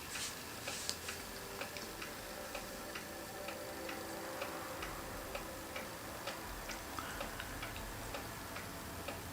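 Steady, regular ticking, about two to three ticks a second, over a faint steady hum.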